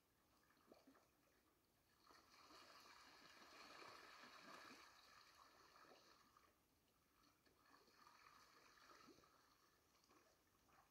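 Near silence, with faint splashing and lapping of lake water from a flock of ducks swimming and diving close by.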